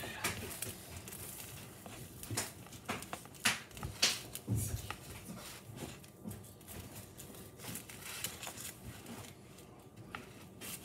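A knife sawing through the crisp, toasted crust of a grilled cheese sandwich, giving irregular crunches and crackles.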